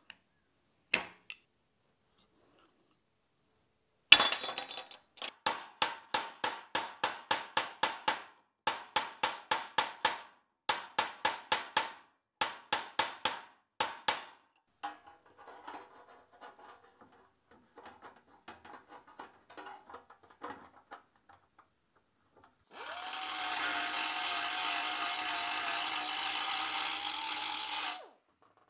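Hammer blows on a small round steel plug held in locking pliers: about two dozen sharp, ringing strikes in quick runs, about three a second, then faint scraping. Near the end a power tool runs steadily for about five seconds.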